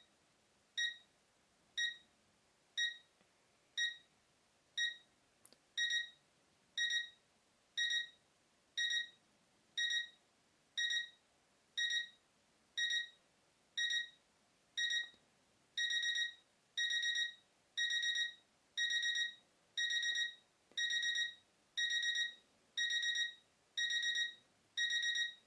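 Arespark Smart LED alarm clock's alarm sounding: a short, high electronic beep about once a second. The beeps step up in strength about six seconds in and grow longer about sixteen seconds in, as the escalating alarm builds.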